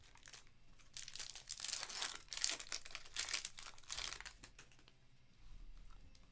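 The plastic wrapper of a Panini Prizm multi-pack of trading cards is torn open and crinkled by hand, in a cluster of crackling rustles from about a second in until about four seconds in.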